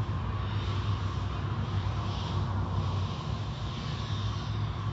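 Automatic car wash machinery running, heard from inside the car: a steady low hum with hiss that swells and fades a few times.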